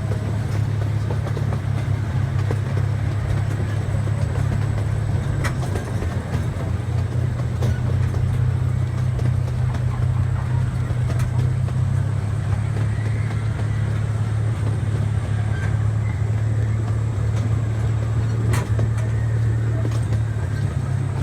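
Amusement-park train running steadily: a constant low rumble with a few faint clicks along the way.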